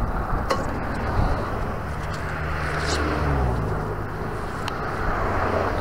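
Road traffic passing: a motor vehicle's engine hum over steady road noise, with a few light clicks.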